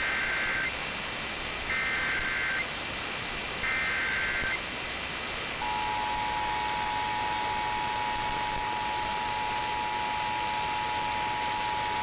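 Emergency Alert System signal: three short bursts of SAME digital header data, each about a second long and about a second apart. About five and a half seconds in, the steady two-tone EAS attention signal starts, heralding a severe thunderstorm warning. A constant background hiss runs under it all.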